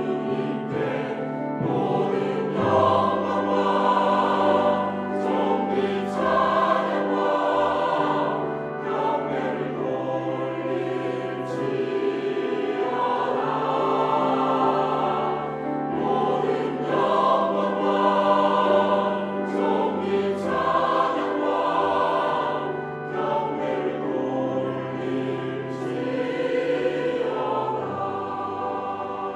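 Mixed church choir of men's and women's voices singing a Korean anthem in Korean, over accompaniment with long held bass notes that change every few seconds.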